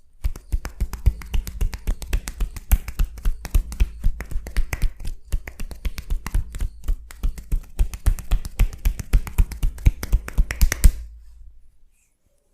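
Percussive back massage (tapotement): hands striking a person's back in a fast, steady rhythm. Many sharp slaps with dull thuds each second, stopping suddenly about eleven seconds in.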